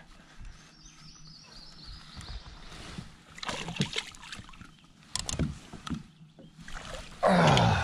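Scattered knocks and rustles on a bass boat's deck as a landed largemouth bass is handled, ending with a short grunt that falls in pitch.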